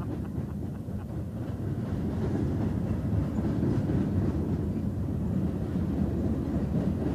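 Freight train boxcars rolling past: a steady low rumble of steel wheels on the rails.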